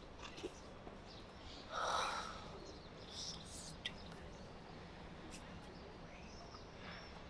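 Faint outdoor park ambience with small birds chirping now and then, a few chirps about three seconds in and again near the end. About two seconds in, a person's breathy sigh is the loudest sound.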